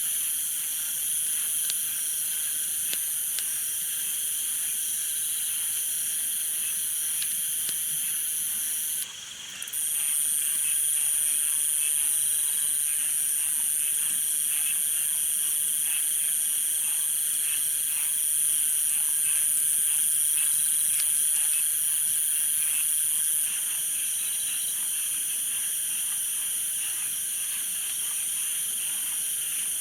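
Chorus of insects and frogs: a steady high-pitched insect drone over rapid chirping calls. It drops out briefly about nine seconds in and comes back a little louder.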